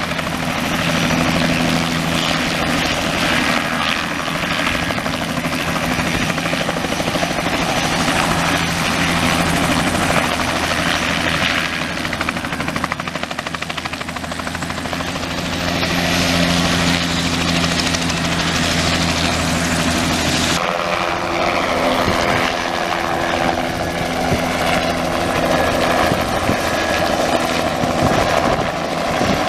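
Crop-spraying helicopter, a Bell 206 JetRanger-type with spray booms, its turbine and two-bladed rotor running steadily as it hovers low, sits near the ground and climbs away again. The sound changes abruptly about two-thirds of the way through.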